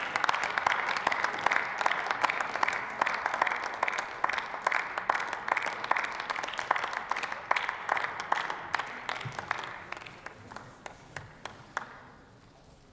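Applause from members of parliament in a sparsely seated chamber after a speech, clapping steadily, then thinning out and dying away over the last few seconds.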